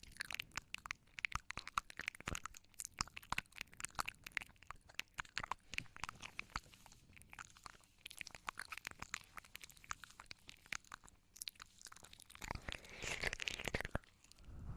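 ASMR mouth sounds made close to the microphone: a rapid, irregular stream of mouth clicks and smacks. Near the end they merge into a denser, breathy rush.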